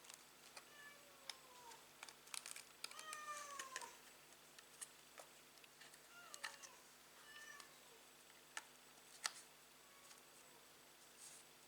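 Faint short calls from a pet animal, about four of them, each falling in pitch, with scattered light clicks and taps between them.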